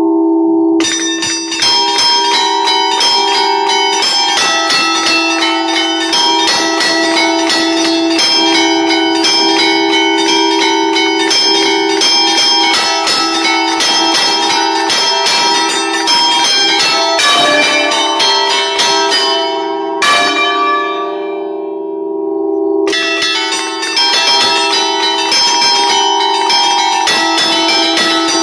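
A five-bell church peal in D (Barigozzi, 1952) played as hand-rung allegrezze, heard up close in the belfry: the clappers are struck in quick succession from a lever keyboard and rope, and the bell tones ring over one another in a fast tune. About two-thirds of the way through the strikes stop for some three seconds while the bells ring on, then the playing resumes.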